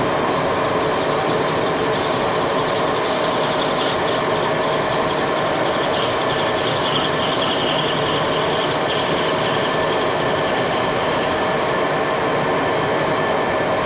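A machine running steadily, a continuous mechanical drone with a mix of steady tones. A brighter, higher hiss rises over it for a few seconds in the middle.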